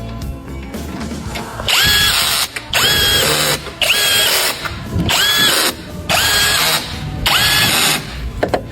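Cordless power tool run in six short trigger pulses, about one a second: each time the motor whine climbs quickly and then holds steady, high-pitched.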